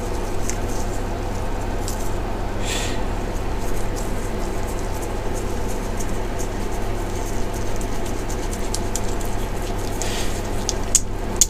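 Steady low hum, with faint clicks and rubs as a hand-held brake pipe flaring tool is unscrewed and the flared pipe worked loose from it.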